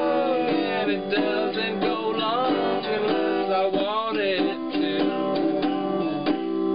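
Acoustic guitar strummed in a steady chordal pattern while a man sings long, sliding notes over it.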